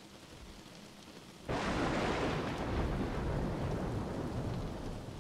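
Faint steady rain, then a sudden clap of thunder about one and a half seconds in that rumbles on and slowly fades.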